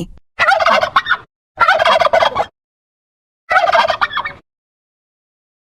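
Turkey gobbling: three rapid, rattling gobbles, each just under a second long, separated by short silences.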